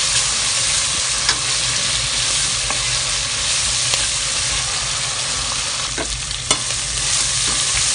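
Sliced shallots, garlic and pounded dried shrimp sizzling in hot oil in a metal pan while being stir-fried with a spatula. The hiss is steady, and the spatula scrapes and knocks against the pan a few times: once about a second in, and twice around six seconds in.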